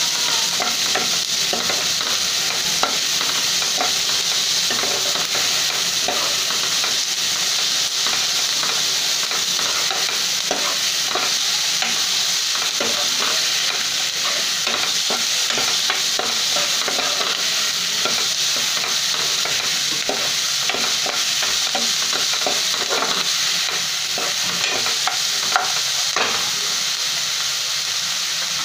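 Chopped onions sizzling steadily in hot oil in a non-stick kadhai while a steel spoon stirs them, with frequent short scrapes and taps of the spoon against the pan. The onions are in the early stage of sautéing, being cooked until soft and pink.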